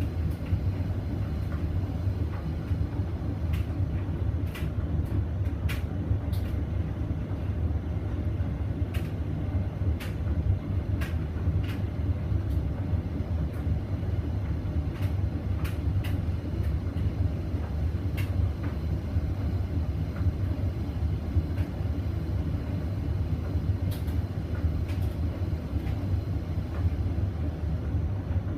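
Hoover Vision Dynamic washing machine in its intermediate spin with a blanket and bedding load: a steady, deep drum rumble, with scattered light clicks and ticks on top.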